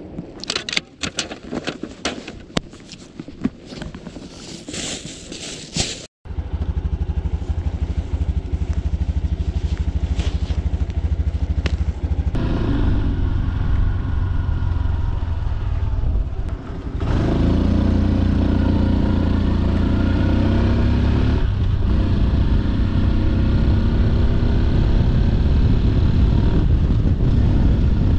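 A few seconds of clicks and knocks, then the Honda Super Cub C125's 125 cc single-cylinder engine running under way. Its pitch rises as it accelerates, dips briefly at a gear change about two-thirds through, then climbs again.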